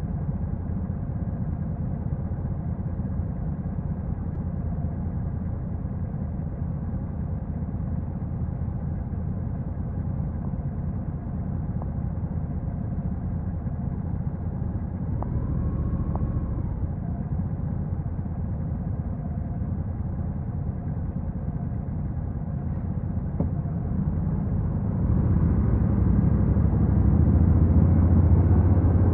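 Honda NC750X motorcycle's parallel-twin engine running at steady low revs, then growing louder near the end as it picks up power.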